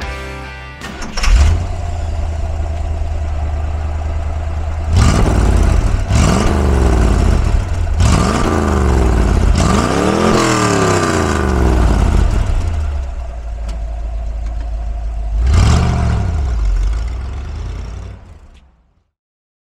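1970 Chevrolet Corvette C3's 350 V8 catching about a second in and settling into a steady idle. It is revved five times, four quick blips between about 5 and 11 seconds in and one more near 15 seconds, each rising and falling in pitch. It then pulls away and fades out.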